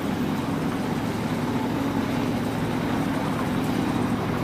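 A parked semi truck's engine idling with a steady low hum.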